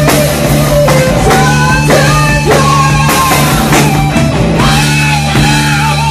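Live rock band playing loud: drum kit, bass and electric guitar, with drum hits over a steady low bass note.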